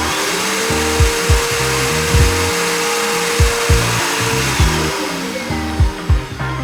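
Electronic music with deep kick-drum thumps, a bass line and a held synth tone, over a steady dense hiss.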